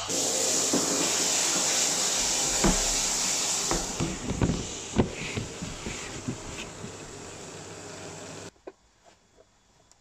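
Steady rush of water pouring into a plastic water tank, with several hard plastic knocks as the tank's lid is handled and shut; the rush cuts off suddenly about eight and a half seconds in.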